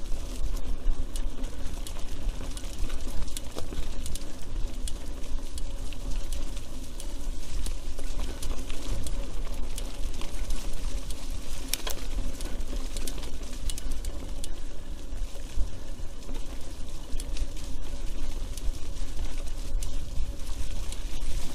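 Mountain bike riding down a forest trail, heard from an action camera on the rider: a steady low rumble with constant clicking and rattling of the bike over the rough ground.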